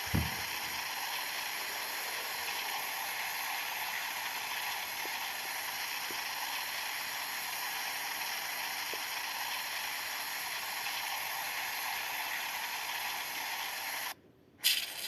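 Steady, even hissing noise with no rhythm, which cuts off suddenly near the end.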